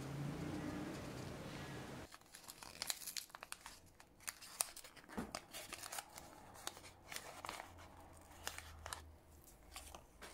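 A small paper packet holding a replacement watch crystal crinkling and rustling as it is opened by hand, in a run of quick, sharp crackles from about two seconds in. Before that, a low steady hum cuts off abruptly.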